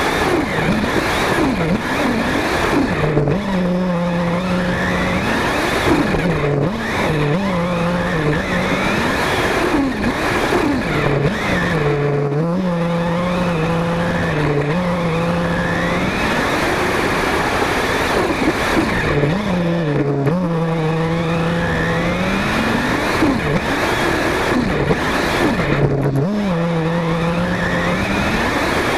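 Engine of a Kyosho Inferno MP5 nitro RC buggy, heard from a camera mounted on the car. It revs up and drops back again and again while driving, with steady tyre and ground noise underneath.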